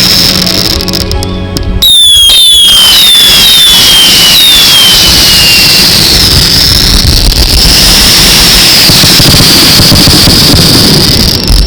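Fireworks going off in a loud, steady din, with several falling whistles in a row a couple of seconds in.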